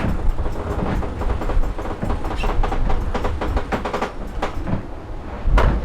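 Fast, uneven rattling and clicking over a steady low rumble aboard an IMOCA racing yacht under way, with a louder knock near the end.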